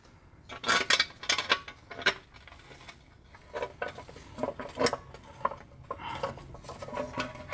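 Irregular metallic clanks and clinks as an E46 BMW's aluminium oil pan is shifted by hand up against the engine block and the parts around it, with a loud cluster of knocks about a second in and many lighter ones in the second half.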